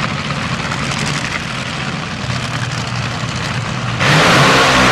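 Supercharged nitro-burning engine of a front-engine Top Fuel dragster running at a steady idle. About four seconds in it jumps abruptly to much louder full throttle, as for a burnout.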